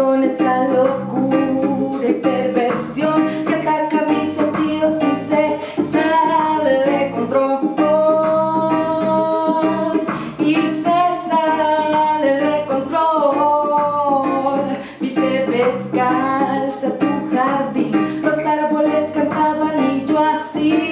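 A woman singing over a hip hop/reggae instrumental backing track, her voice bending through held notes above the accompaniment.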